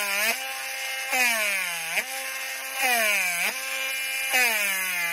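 Dremel rotary tool running with a steady whine, its pitch sagging and springing back four times, about every second and a half, as the spinning bit is pressed in short bursts into a fingerboard's wood veneer to countersink a hole.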